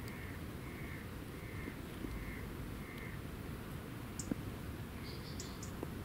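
Birds calling outdoors: a harsh call repeated five times in an even series, about one every 0.7 seconds, then a few short, high chirps near the end. A single sharp tap sounds about four seconds in.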